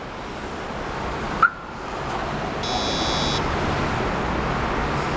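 Viper 5902 alarm system arming with a door open: a short sharp chirp about a second and a half in, then a buzzy electronic beep of under a second, the warning that the door is open. A steady rushing background noise runs underneath.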